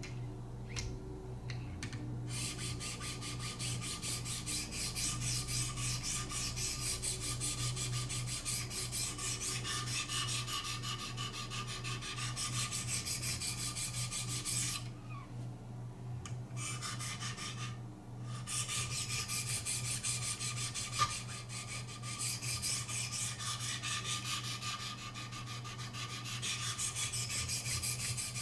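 Knife blade being sharpened on a Wicked Edge guided sharpener's 600-grit stones: a rapid, continuous run of rasping strokes of stone over steel, broken by two short pauses about halfway through.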